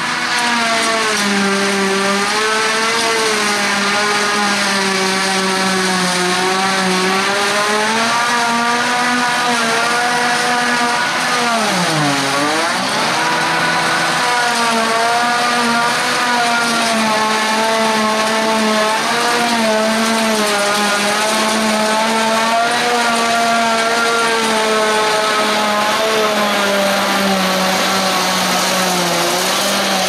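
Claas Jaguar 970 forage harvester chopping thick grass: a loud, steady machine whine with a slowly wavering pitch over a rushing noise. About twelve seconds in, the pitch dips sharply for about a second and then recovers.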